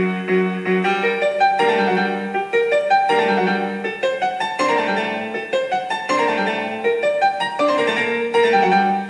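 Background piano music playing a melody of separate notes.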